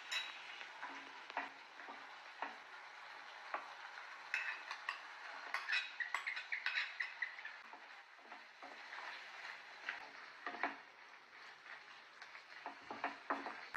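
Wooden spatula scraping and tapping in a frying pan as marinated chicken is tipped into a simmering tomato gravy and stirred, over a faint sizzle. The scrapes and clinks come thickest a few seconds in and again near the end.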